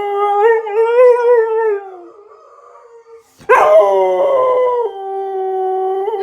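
Dogs howling in response to an ambulance siren. One long wavering howl fades out about two seconds in. After a short lull, a loud new howl starts about halfway through, sliding down in pitch, then holds steady.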